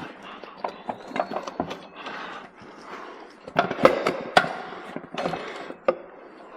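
Metal parts and tools clicking, clinking and knocking irregularly as a mini bike's wheel, spacers and washers are handled and fitted by hand, with the loudest knocks a little past halfway.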